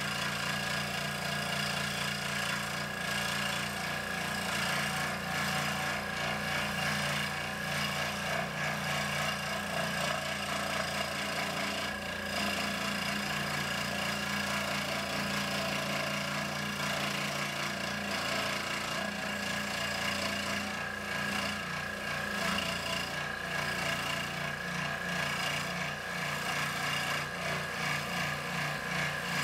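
Delta 15-inch scroll saw running steadily, its reciprocating blade cutting tight curves through a thick block of pine.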